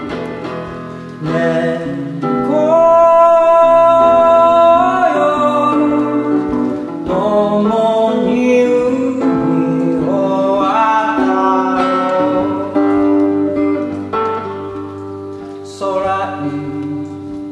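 A man singing a slow melody with long held notes, accompanied by his own acoustic guitar.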